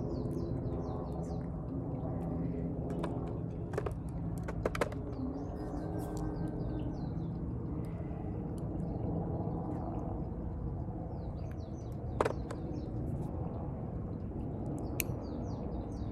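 Small birds chirping in short runs of quick high notes, several times over, above a steady low outdoor rumble. A few sharp clicks come in between, the loudest about twelve seconds in.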